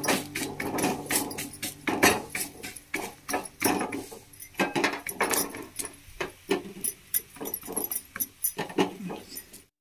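A bare hand patting soft jowar and fenugreek dough flat on an iron tawa: quick irregular slaps, several a second, thinning out and stopping just before the end.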